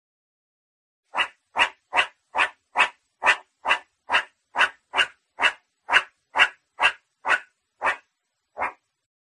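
Meerkat calling: a run of about seventeen short calls, roughly two a second, the last few a little further apart.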